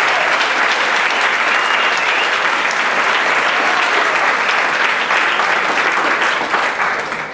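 Audience applauding, a dense clapping of many hands that dies away near the end.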